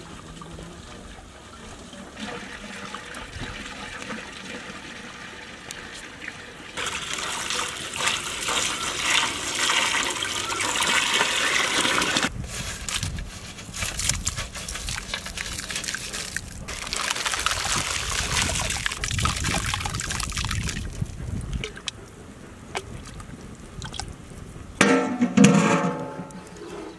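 Water poured from a large plastic jug into a big metal cooking pot, splashing in several long pours with short breaks between them. A short loud sound comes near the end.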